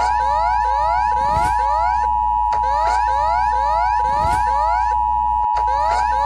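Emergency alert system alarm tone: a steady tone near 1 kHz under a fast, repeating rising sweep, about four sweeps a second.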